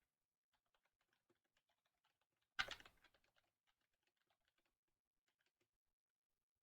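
Faint typing on a computer keyboard: scattered soft key clicks, with one brief louder noise about two and a half seconds in.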